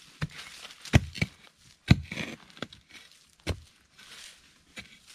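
A long-handled digging spade jabbed repeatedly into the ground, giving about seven sharp thuds at irregular intervals, the loudest about two seconds in.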